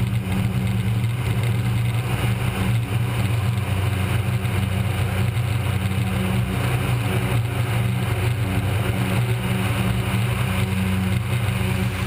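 Cessna 208 Caravan's single turboprop engine and propeller at takeoff power during the takeoff roll, a loud, steady drone.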